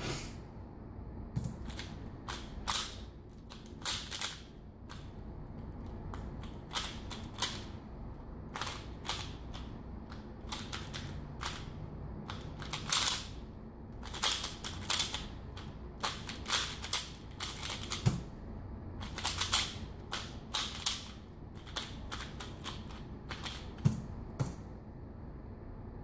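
Valk 3x3 speedcube being turned fast, its plastic layers clicking and clacking in rapid bursts with short pauses between, as in a speed solve.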